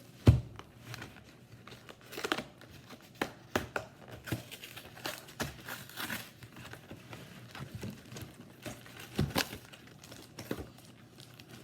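Plastic wrapping on a trading-card box crinkling and tearing as the box is unwrapped and opened, in irregular crackles, with a heavy thump just after the start.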